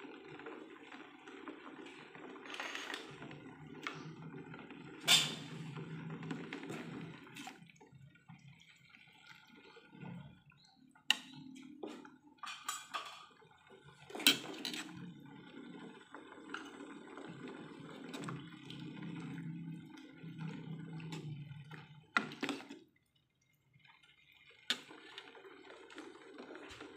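A pot of coconut-milk vegetable soup (sayur lodeh) heating back up to the boil, its broth bubbling. A metal ladle clinks sharply against the pot a few times.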